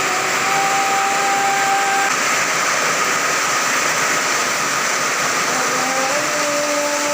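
Heavy rain driven by strong wind: a steady, loud rushing downpour with no let-up. Faint held tones rise above it briefly, about a second in and again near the end.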